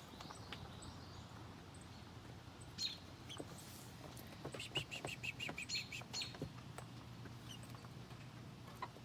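Young chicks peeping: scattered short high peeps, with a quick run of rapid chirps in the middle, over a low steady hum.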